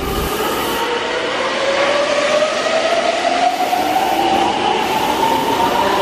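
Red Meitetsu electric train accelerating out of the platform, its traction motor whine rising steadily in pitch over the rumble of the train.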